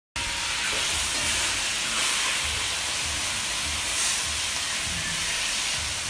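Chicken pieces sizzling as they brown in hot oil in a large aluminium pot: a steady frying hiss that starts abruptly just after the beginning.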